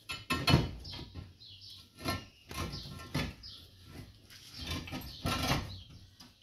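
Concrete blocks knocking and scraping against each other as they are set in place by hand, in an irregular run of short knocks and scrapes.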